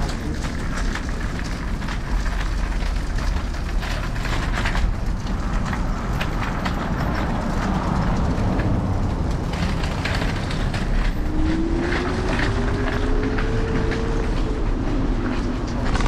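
Wind buffeting and road rattle from a ride on an Apollo Explore electric scooter, heard through a GoPro on its handlebars, with steady low rumble and many small clicks and knocks from the pavement. About eleven seconds in, a whine rises in pitch for a few seconds.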